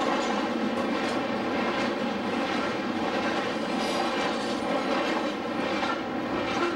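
Double-stack container train passing close at speed: a steady rumble and rattle of steel wheels on rail and loaded well cars.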